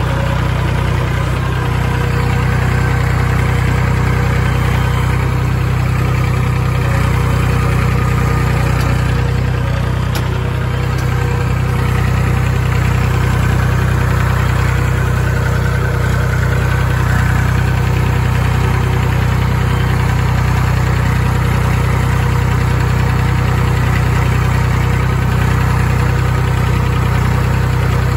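Massey Ferguson 251XE tractor's diesel engine running at a steady speed while the tractor drives across a pasture, heard from the driver's seat close to the exhaust stack.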